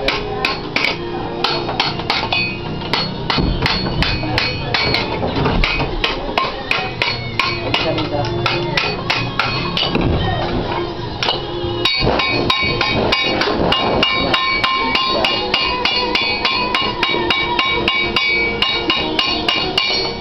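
Hammer blows on the sheet-metal body panels of a Mitsubishi L300 van being straightened in body repair: quick repeated strikes, several a second. From about twelve seconds in the strikes come faster, with a ringing metallic tone.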